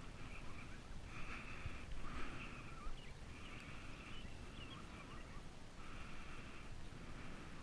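Faint chorus of raspy animal calls, each lasting under a second, repeating irregularly with short gaps, over a low rumble.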